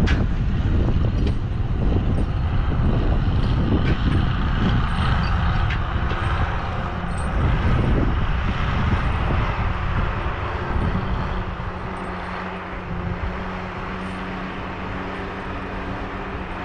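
Heavy diesel machine, likely a log skidder, running loudly with clanking and knocking. About eleven seconds in it settles into a steadier, slightly quieter drone.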